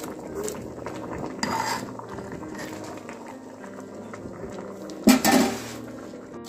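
Metal ladle stirring and scraping in a large aluminium pot of simmering vegetable stew, with scattered clinks against the pot. A louder clatter of the ladle on the pot about five seconds in.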